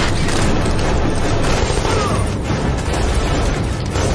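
Movie soundtrack: dramatic music over a loud, steady low roar of wind and aircraft in flight.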